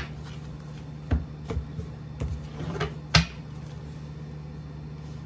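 A deck of tarot cards being squared and tapped against a wooden table: a few light knocks, the loudest a sharp tap about three seconds in, over a low steady hum.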